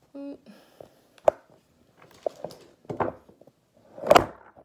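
Handling noise from a camera being moved about and repositioned: a brief tone at the very start, scattered clicks and knocks, and a heavy thump about four seconds in, the loudest sound.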